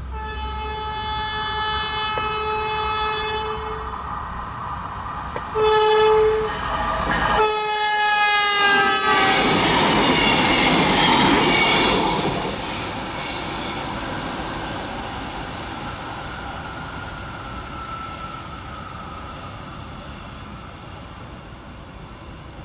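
An NJ Transit River Line diesel light-rail railcar sounds its horn for the crossing: a long blast, a short one, then another whose pitch drops as it passes. The rumble of the railcar going by follows for a few seconds and slowly fades.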